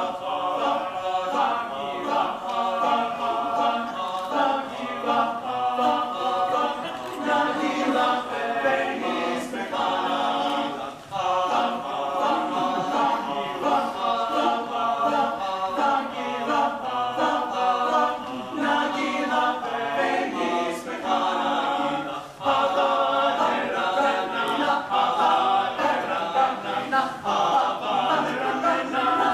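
Men's a cappella choir singing in harmony, no instruments, with two short breaks between phrases about 11 and 22 seconds in.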